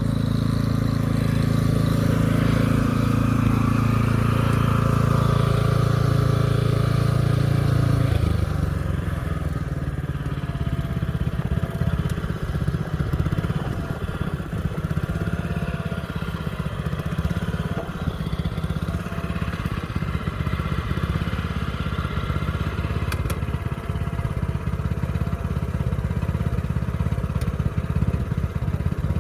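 Asia walk-behind cultivator's small engine running steadily. About eight seconds in its note drops and turns rougher and a little quieter.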